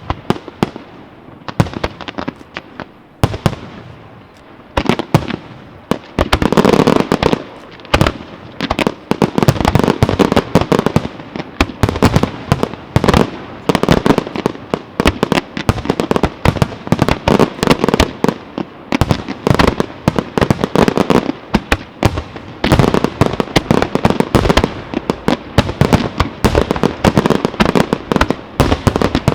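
Fireworks display: scattered bangs for the first few seconds, then from about six seconds in a dense, continuous barrage of rapid explosions and crackling.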